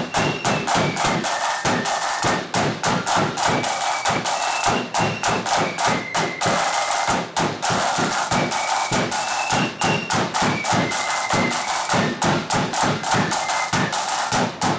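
Flute band playing: several marching snare drums beat a fast, driving rhythm of sharp strokes under a high flute melody.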